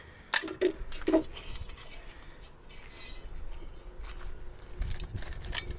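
Scrap iron clinking against a magnet-fishing magnet: two sharp metallic clinks about a second apart, then a low rumble near the end.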